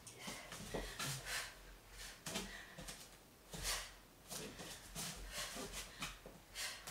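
A person exercising, with short hissing breaths and rustles from throwing kicks, unevenly one or two a second.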